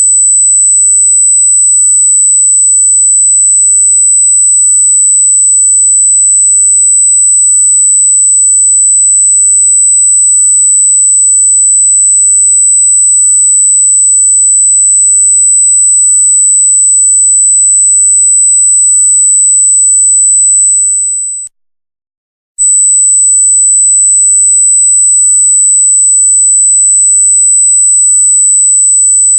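A loud, steady, very high-pitched electronic sine tone, one pure pitch held without change; it cuts out for about a second some two-thirds of the way through, then resumes at the same pitch.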